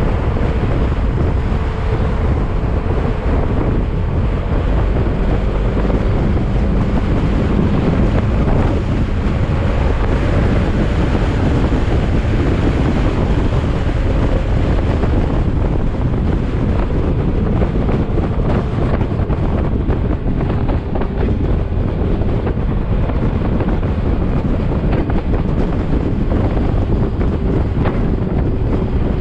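Yamaha XMAX maxi-scooter under way, its single-cylinder engine running at a steady cruise under heavy wind rush on the microphone.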